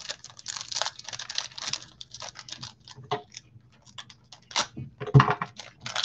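Football trading cards being flicked and slid one by one off a stack in gloved hands: a quick, irregular run of soft clicks and brushing swipes, with a louder thump about five seconds in.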